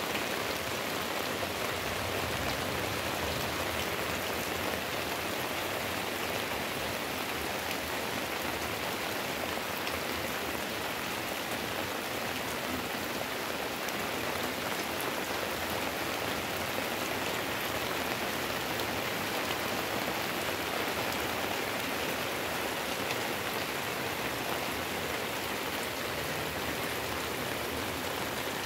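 Heavy rain falling steadily on leaves and a roof: a dense, even hiss of drops with no let-up.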